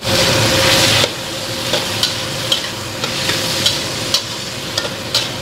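Chopped green vegetables sizzling as they are stir-fried in a wok, loudest in the first second. A metal spatula scrapes and taps against the wok about twice a second. A steady hum runs underneath.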